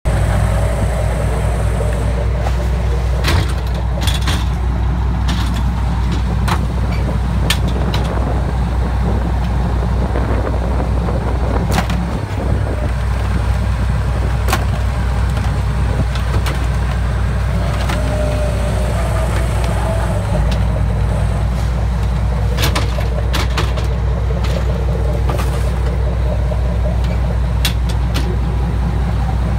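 Fishing boat's engine running steadily with a low hum, over which come scattered sharp knocks and clanks from stone crab traps and gear being handled on deck.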